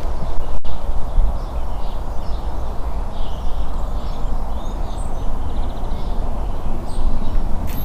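Outdoor ambience: a steady low rumbling noise with small birds chirping over it, including a short rapid trill about five and a half seconds in.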